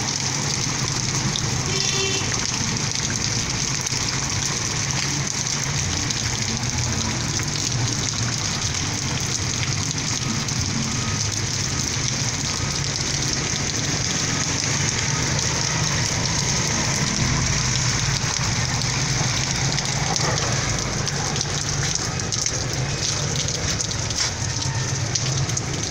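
Heavy rain pouring steadily onto wet pavement and a flooded street.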